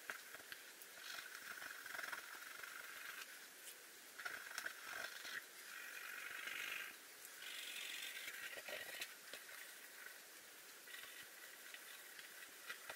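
Faint scratching of a graphite pencil hatching across paper, in stretches of one to two seconds with short pauses between strokes.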